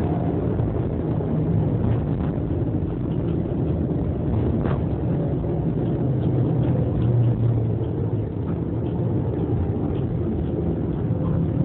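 Tram running along street tracks, heard from inside: a steady low rumble of wheels and running gear with a faint motor whine, and one sharp click a little before halfway.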